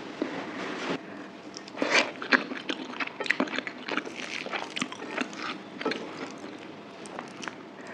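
Close-miked chewing and mouth noises from eating mutton curry with rice: irregular wet smacks and clicks, busiest about two seconds in.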